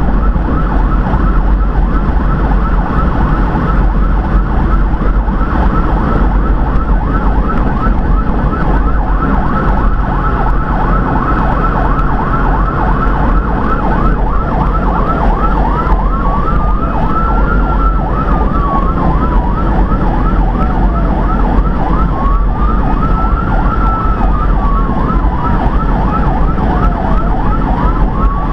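Emergency vehicle siren sounding a fast yelp over the rumble of engine and road noise. About halfway through, a slow rising-and-falling wail joins the yelp.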